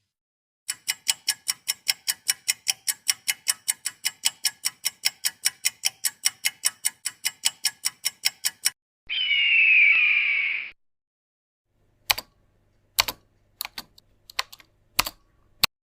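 A run of sound-effect clips played one after another. First comes an even, fast ticking at about four ticks a second for roughly eight seconds. Then a short whistling tone wavers and falls. Last come a few scattered, irregular sharp clicks.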